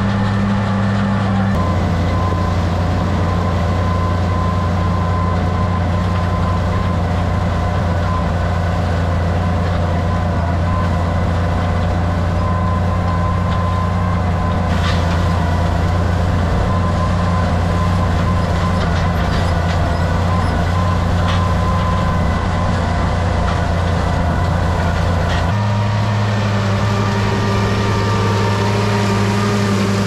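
Oliver 1650 tractor engine running steadily under load while pulling a wheel rake through corn stalks. Its tone shifts abruptly about a second and a half in and again a few seconds before the end.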